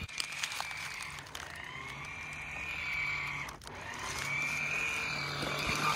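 Small electric motor of a toy RC wake boat whining as it drives across the water, a high steady whine that rises and eases with the throttle in two long runs with a brief break about halfway through.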